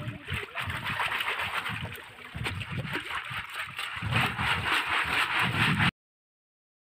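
Water splashing and gurgling in irregular surges, cut off abruptly to silence about six seconds in.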